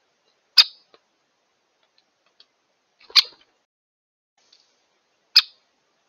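Three sharp, loud clicks, roughly two and a half seconds apart, each with a brief tail, with a few faint ticks between them.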